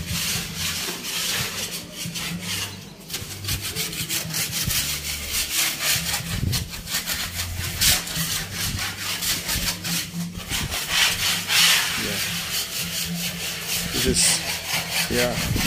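Rapid, repeated scraping strokes of a hand tool rubbing against a cement-rendered wall. The old, cracked and peeling cement screed and paint are being taken off to prepare the wall for gum screeding.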